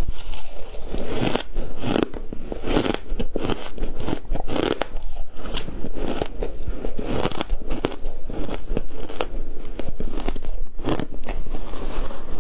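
Ice chunks being bitten and chewed, a steady run of sharp cracks and crunches as the ice breaks between the teeth.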